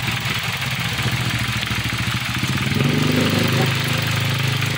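An engine idling steadily with a fine, even pulse. About halfway through, a second, somewhat higher engine note grows in on top of it.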